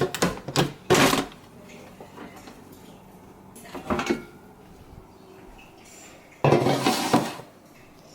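Dishes and utensils clattering in three bursts: one in the first second, a short one around four seconds in, and a longer one about six and a half seconds in.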